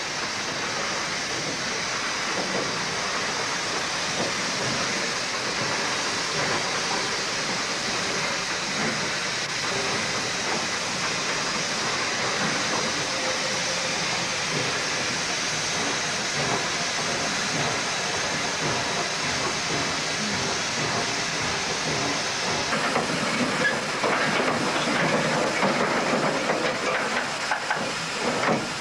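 Steam hissing steadily from a standing PKP Ty2 class 2-10-0 steam locomotive. Near the end a louder, crackling noise takes over.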